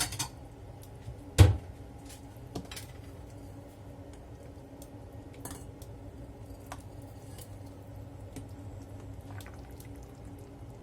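Soup being ladled out of a pot: a metal ladle knocks and clinks against the pot and bowl, with one loud knock about a second and a half in, then faint clinks and soup dripping over a steady low hum.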